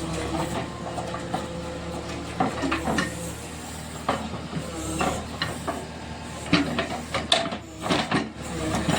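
Backhoe loader's diesel engine running steadily, with a string of sharp knocks and clatter starting a few seconds in.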